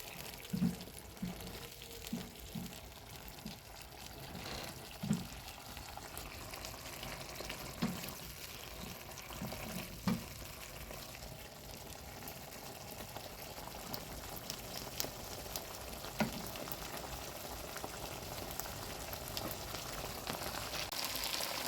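Liver simmering in a creamy milk gravy in a pan: a steady low hiss with scattered soft bubbling pops, and a few sharper ticks here and there.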